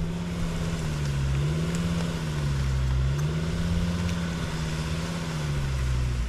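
Diesel car engine running under load, its revs sagging and rising again a few times as it tries to pull the stuck car out of deep holes.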